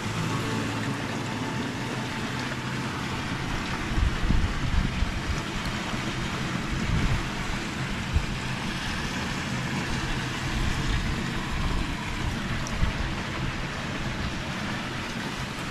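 Shallow water running over the concrete bed of an irrigation canal, a steady rushing hiss. From about four seconds in, irregular low rumbles hit the microphone.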